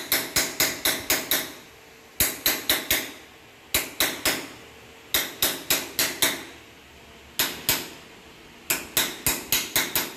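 Small hammer tapping lightly in quick runs of several strikes with short pauses between, each tap leaving a brief metallic ring; the taps are kept gentle because the floor tiles are brittle.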